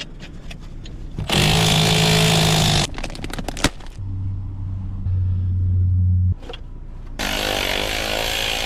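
Handheld power tool running in three bursts of one to two seconds each, with a few sharp clicks between the first and second burst. It is most likely driving the car's strut bolts.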